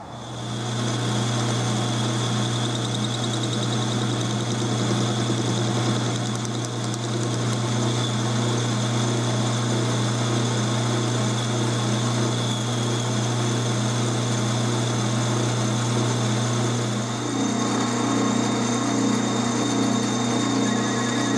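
12-inch Atlas lathe running under power, its motor and drive giving a steady hum while a boring bar cuts the bore of a part spinning in the chuck. The hum changes character near the end.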